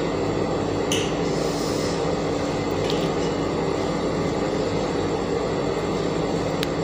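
A steady mechanical hum with an even rushing noise, unchanging in level, with a few faint ticks.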